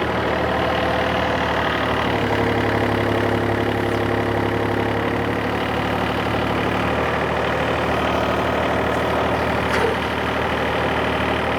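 Yanmar excavator's diesel engine running steadily while it works, with a single short knock about ten seconds in.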